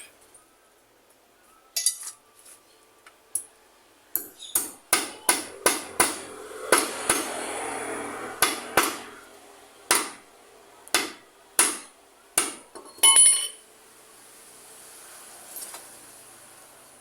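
Hammer blows during repair work: a few scattered strikes, then a run of sharp strikes about two a second. A brief rattling clatter follows near the end.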